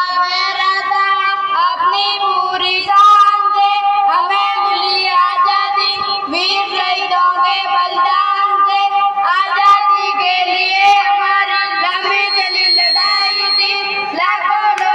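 A boy singing a Hindi patriotic poem into a microphone, amplified through a PA, over a steady held drone tone.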